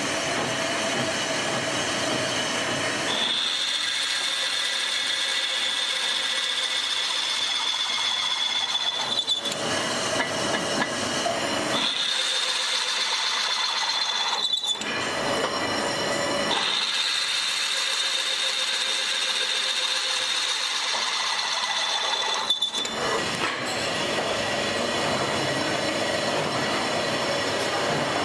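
Pillar drill boring bolt holes through a cast-iron brake drum, with steady workshop machine noise throughout. A high, steady whine comes in three times for several seconds at a time, each stretch starting and stopping abruptly.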